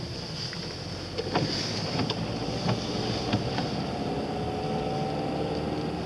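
Car cabin noise while driving on a wet road: steady engine and tyre rumble with a few scattered light ticks. From about three seconds in the engine hum rises slightly in pitch as the car picks up speed.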